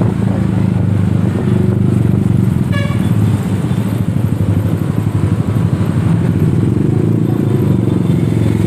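Road traffic engines running steadily, motorcycles among them, with a brief horn toot about three seconds in.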